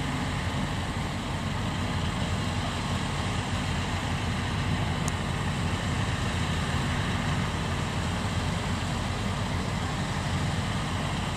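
Kubota DC93 combine harvester's diesel engine running steadily at a constant speed.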